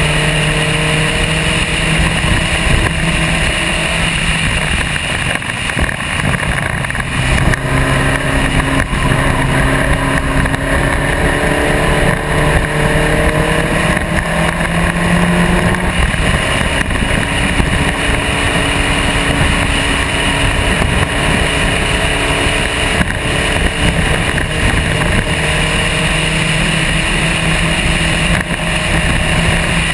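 SCCA Spec Racer Ford's engine at racing speed on track. Its note climbs and drops back several times as it pulls through the gears, over a steady rushing noise.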